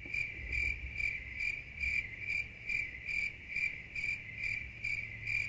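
Crickets chirping: a steady high trill that pulses evenly about twice a second.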